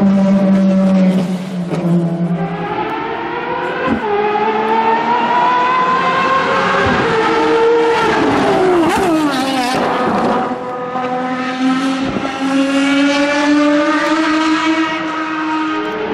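Ferrari FXX V12 engine running: a steady low note at first, then revving up and accelerating hard, with a car passing at speed and the pitch dropping sharply a little past halfway, then climbing again through the gears near the end.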